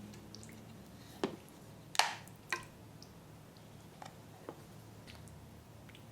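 A few short, wet squishing and dripping sounds from the edible psyllium slime being handled. The loudest comes about two seconds in with another just after it, and fainter ones follow.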